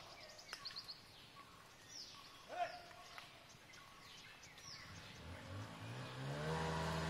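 Scattered short bird chirps, then a vehicle engine starts up about five seconds in, rising in pitch and then running steadily, and becomes the loudest sound by the end.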